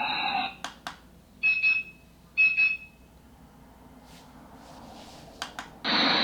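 Red5 light-up wireless alarm clock speaker giving two short electronic alarm beeps about a second apart, with a couple of clicks before and after. A loud steady hiss starts near the end.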